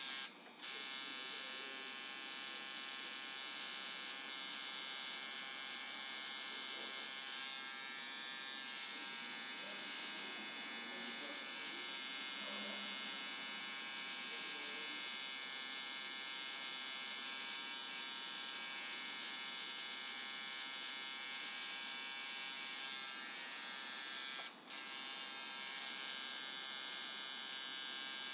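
Electric tattoo machine buzzing steadily, pausing for a moment twice: once just after the start and once near the end.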